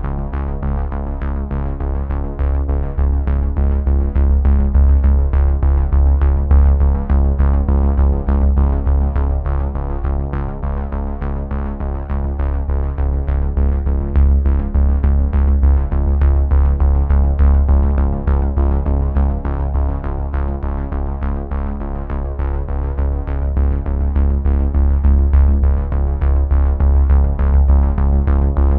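Background electronic music: sustained synthesizer chords over heavy bass, with a fast, steady beat.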